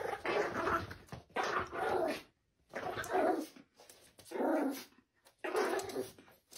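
Small long-haired terrier barking at a cat it has seen in the garden, in a string of about five bursts roughly a second and a half apart.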